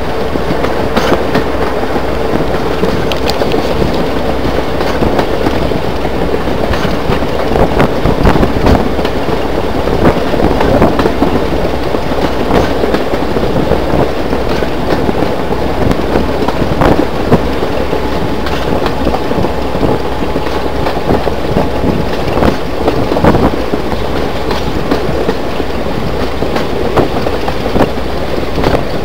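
Passenger train running at speed, heard from an open coach window: a loud, steady rush of wind on the microphone, with the wheels clicking and clattering irregularly over the track.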